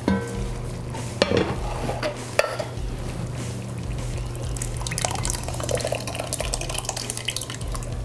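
Lid of a cast-iron pot lifted off with a clank and a couple of knocks, then thick blended tomato purée poured from a blender jar into simmering chili, splashing and gurgling into the pot from about halfway through.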